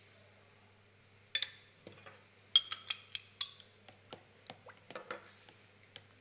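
Clinks and knocks of small glass jars, lids and a plastic tub being handled and set down on a table: a string of sharp taps, the loudest about two and a half seconds in.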